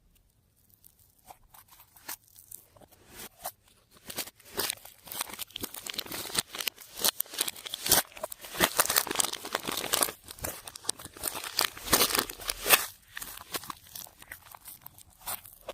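Slime being squeezed and worked by hand, giving dense crackling, popping and crinkling that starts faint about a second in, is busiest in the middle and thins out near the end.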